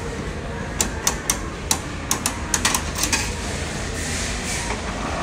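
Coin mechanism of a ball vending machine turned by hand: a run of about a dozen sharp ratchet clicks, starting about a second in and stopping about three seconds in.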